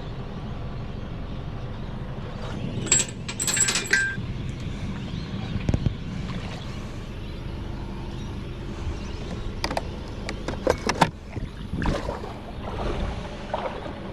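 Metallic clinking and jingling about three seconds in, and a run of sharp clicks near the end, over a steady low rumble.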